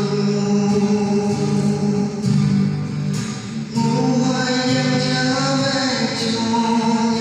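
A man singing long held notes while playing a guitar; the voice drops away briefly a little past three seconds in, then the next line starts.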